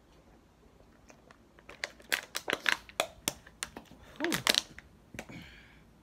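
Close-up crunching of a mouthful of cornstarch chunks being chewed: a dense run of sharp, crisp crunches starting about two seconds in and stopping shortly before the end.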